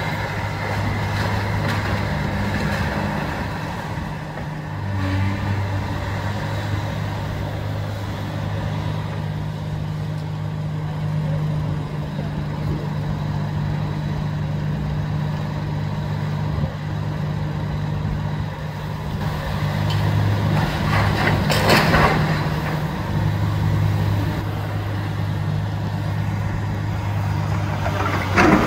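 Demolition excavator's diesel engine running steadily, its pitch shifting in small steps, with a short burst of clatter about three-quarters of the way in and another at the very end.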